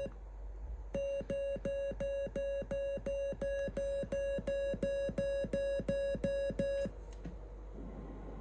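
Morse sidetone from a RockMite QRP CW transceiver while the transmitter is keyed: a steady run of evenly spaced beeps on one mid-pitched tone, about three a second. It starts about a second in and stops about seven seconds in.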